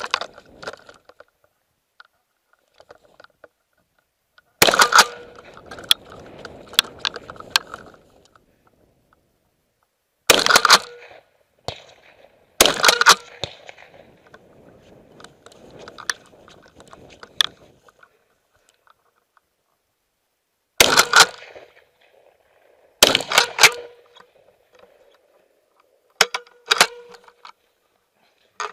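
Hunting rifle shots, several spread over the stretch and some close together. Each is a sharp crack followed by an echo that trails off.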